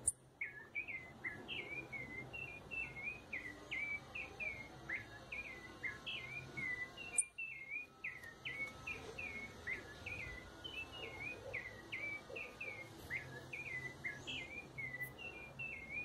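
A small songbird singing a long, unbroken run of short chirped notes, about three or four a second. A sharp click about seven seconds in.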